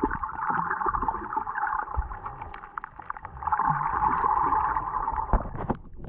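Underwater noise picked up by a camera below the surface: a hiss that swells twice for about two seconds each, with scattered clicks and low knocks.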